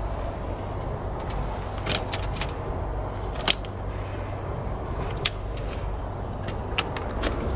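Several sharp clicks and knocks, a cluster about two seconds in, the loudest about three and a half and five seconds in, and two more near the end, over a steady low rumble.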